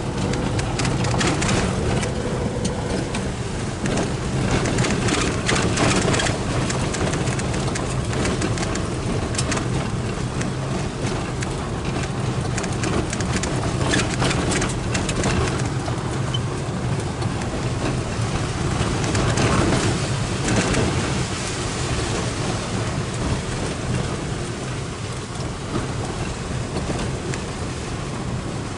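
Car driving on a wet, rough road, heard from inside the cabin: a steady engine and road hum, with tyres crackling and spattering over wet grit and puddles.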